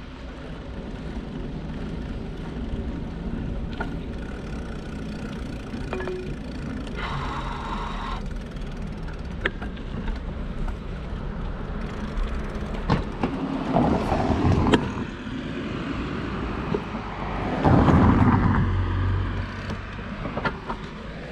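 Steady wind and road noise on a cyclist's microphone while riding, with sharp clicks and rattles now and then. There are two louder swells, a little after halfway and near the end.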